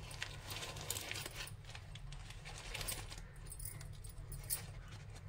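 A few light metallic clinks of a spoon against a stainless-steel mixing bowl as butter is spooned in, over a low steady hum.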